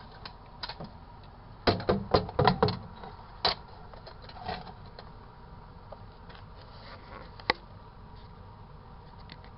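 A quick run of knocks and clicks about two seconds in, then a few single clicks, over a low steady background: objects being handled, like a door or container being moved.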